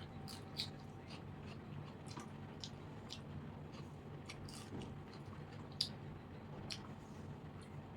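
Close-up mouth sounds of eating panta bhat with crunchy fried snacks: chewing and biting, with irregular short crunches and clicks, the loudest about six seconds in, over a steady low hum.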